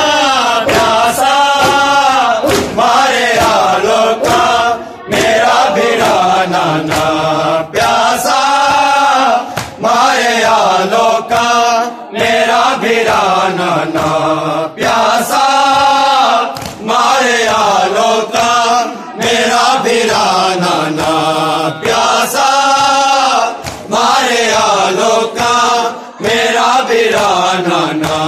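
Men chanting a noha, a Shia mourning lament, with one voice leading into a microphone over a loud amplified sound and others joining in. The singing runs in long phrases, with short dips between lines every few seconds.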